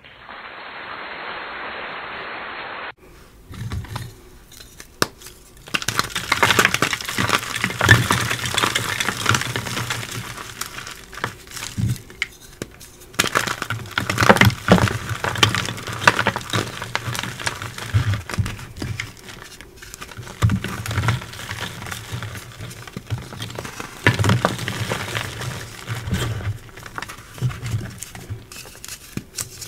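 Reformed gym chalk being squeezed and crushed by hand into loose powder: dry, gritty crunching and crackling that comes in irregular bursts. For about the first three seconds the sound is duller and muffled, with no high end.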